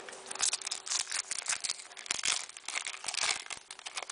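Trading-card pack wrapper being torn open and crinkled by hand, a dense irregular crackling.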